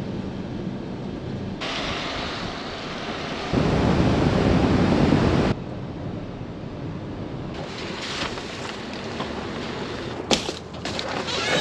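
Road and tyre noise heard inside a van driving on wet roads, a steady rush that jumps louder or quieter every couple of seconds. A few sharp clicks come near the end.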